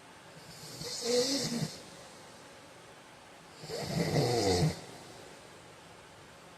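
A sleeping man snoring: two snores, each about a second long, about three seconds apart.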